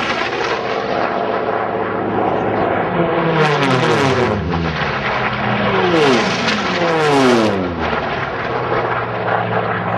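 Piston-engined Unlimited-class racing warbirds flying past one after another at full power. Each engine note drops in pitch as a plane goes by, with several pass-bys in turn.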